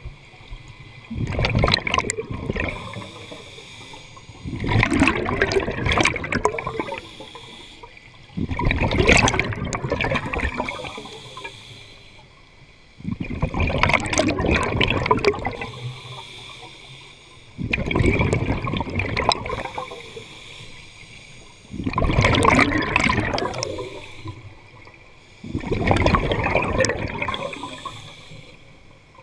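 Scuba diver breathing underwater: a burst of exhaled bubbles rushing past about every four seconds, each starting suddenly and trailing off before the next breath.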